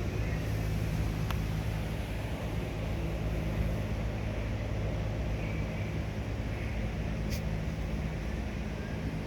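Car engine running steadily, with two brief clicks, a faint one about a second in and a sharper one near seven seconds in.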